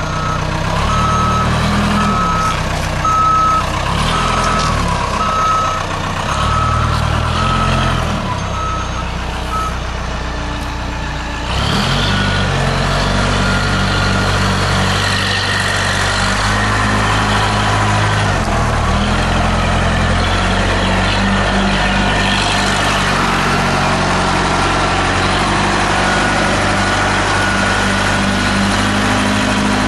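Rough-terrain telescopic forklift driving, its engine running with a shifting note. Its reverse alarm beeps steadily for about the first ten seconds, then stops, and about a second later the engine gets louder as the machine drives off.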